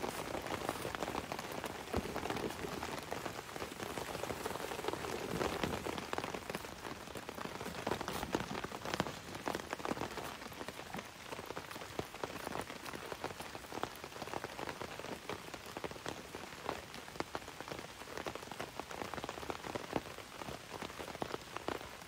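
Medium rain falling on a fly tarp over a tent: a steady, dense patter of many separate drops hitting the fabric.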